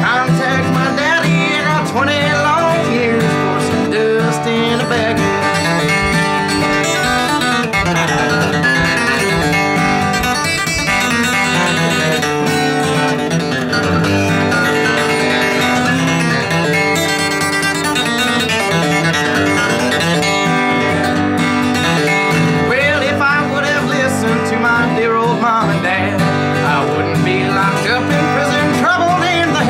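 Instrumental country music led by picked acoustic guitar, playing steadily.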